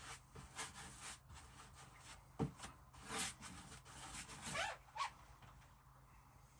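Paintbrush strokes rubbing across a surface: a quick series of short, faint scrapes for about five seconds, two of them ending in a short rising squeak.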